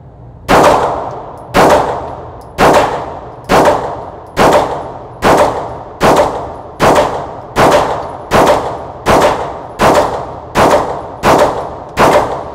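Fifteen unsuppressed shots from a Gen 5 Glock 19 with its stock barrel, firing 124-grain 9mm NATO rounds, in a steady string a little under a second apart. Each shot is followed by an echoing tail that fades off the walls of the indoor range.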